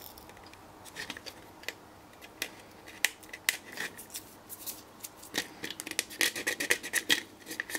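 Fingers peeling a paper label off a chip on a circuit board, then picking and scratching at the board. It is a run of small sharp clicks and scrapes that grows busier over the last few seconds.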